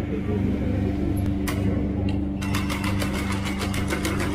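Quadruped robot dog's motors whirring steadily with a low rhythmic pulse; a little over halfway through, a quick, even ticking starts as it trots on four legs.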